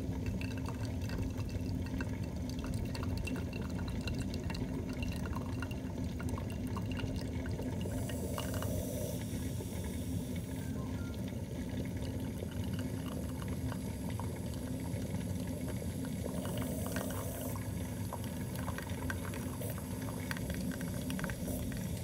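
Morphy Richards New Europa steam espresso maker brewing: hot water and steam bubble and sputter through the coffee grounds into the glass carafe. It makes a steady gurgle full of small pops and turns briefly hissier twice, about eight and seventeen seconds in.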